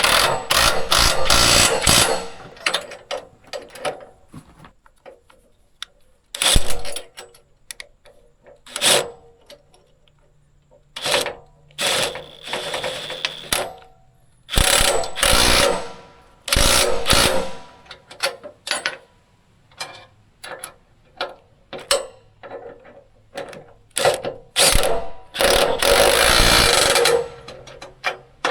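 Irregular clanking, knocking and rattling of hand work with tools and metal parts, in loud bursts of a second or two with short pauses between them.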